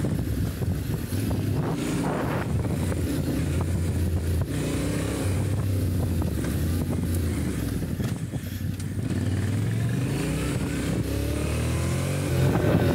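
Yamaha Ténéré 700's parallel-twin engine running under way off-road, its pitch rising and falling with the throttle and climbing near the end.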